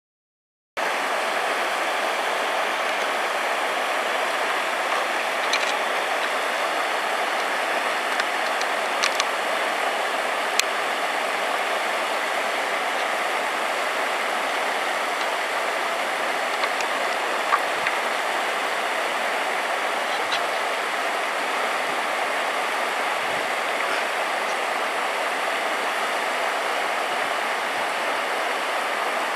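Steady rush of flowing water, starting abruptly about a second in, with a few faint ticks over it.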